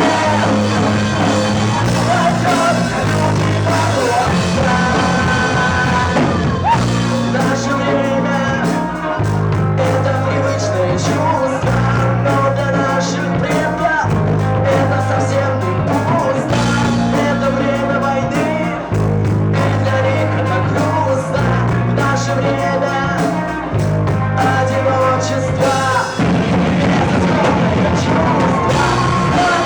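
Live rock band playing loudly, the bass moving through held notes that change every second or two beneath a melodic lead line.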